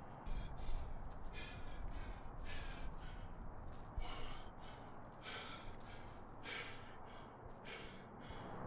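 A man panting hard, about two breaths a second, as he recovers from a heavy set of leg work.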